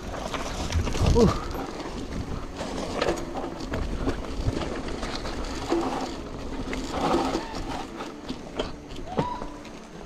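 Mountain bike rolling downhill on a rough dirt trail strewn with dry leaves: steady tyre and trail noise with frequent small knocks and rattles from the bike over bumps.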